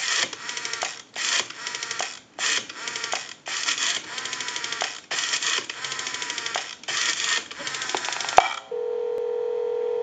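Rotary dial of a candlestick telephone being dialled one digit at a time: a run of clicking bursts, one for each digit as the dial spins back. Near the end a click is followed by a steady ringback tone as the call goes through.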